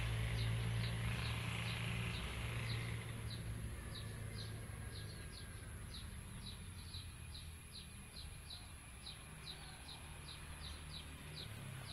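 A high, short chirp repeated at a steady pace of about two a second, each note dropping slightly in pitch. Under it, a low hum fades away over the first few seconds.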